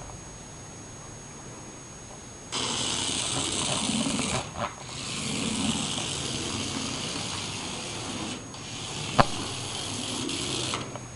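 Small electric motor of a remote-control toy mouse whirring in bursts of a few seconds that start and stop abruptly, with one sharp click about nine seconds in.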